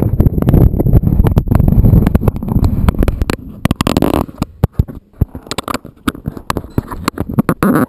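Handling noise from a hand adjusting an action camera mounted on a race car's bodywork. For about the first three seconds there is rumbling and rubbing right on the microphone, then a string of sharp clicks and taps on the housing.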